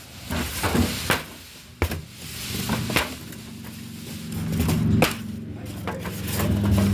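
Cardboard packaging of a new chest freezer being handled and cut away: a series of irregular knocks and scrapes.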